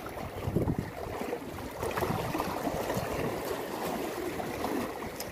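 Small waves lapping and splashing against the rocks at the water's edge: a steady watery rush with a few louder low surges.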